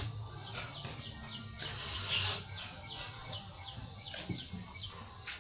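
A bird calling: a run of short, high, falling chirps, about three a second, over a steady low background hum.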